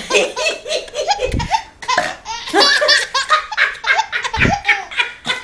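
A baby laughing hysterically: quick, repeated high-pitched peals of belly laughter with short breaths between them.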